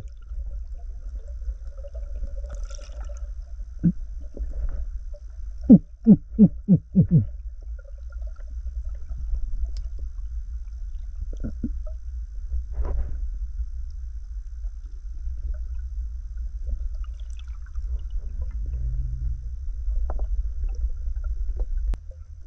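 Muffled underwater sound heard through a camera's waterproof housing: a steady low rumble of water, with a quick run of about five short knocks around six seconds in and a few single knocks later.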